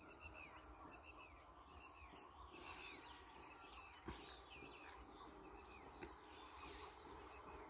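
Faint outdoor ambience: an insect chirping in a steady fast pulse, high-pitched, with repeated short swooping bird calls over it.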